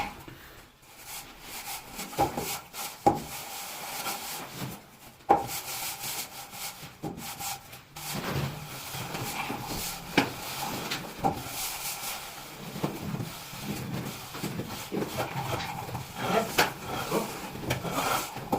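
Irregular hard knocks, a few sharp ones standing out, over ongoing rubbing and scraping of materials being worked by hand.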